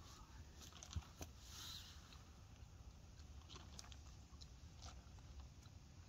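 Faint eating sounds: scattered light clicks of a knife on a plastic plate while steak is cut, and chewing, with one sharper click about a second in, over a low background rumble.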